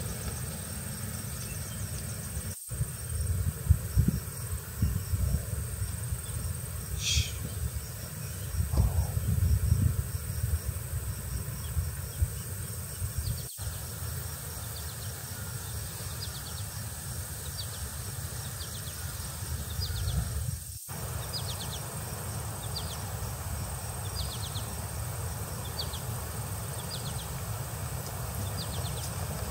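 Outdoor ambience of insects: a steady high-pitched drone with rows of short repeated chirps, over an uneven low rumble. The sound cuts out for an instant three times.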